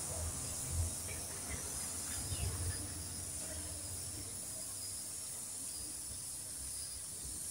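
Soft rustling of dried coriander being crushed and rubbed between the palms, with a couple of low bumps in the first few seconds, over a steady faint high hiss.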